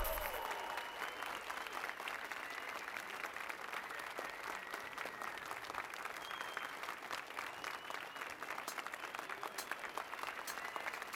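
Audience applauding steadily after the song is announced, a dense patter of clapping.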